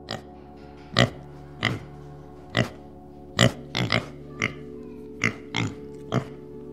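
About a dozen short grunts from dozing pigs at irregular intervals, over steady background music.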